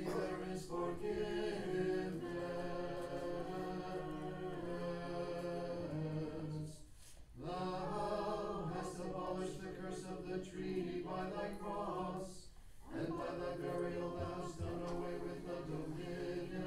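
Orthodox liturgical chant sung a cappella, with a low note held beneath the melody. It comes in three long phrases with short breaks about seven and thirteen seconds in.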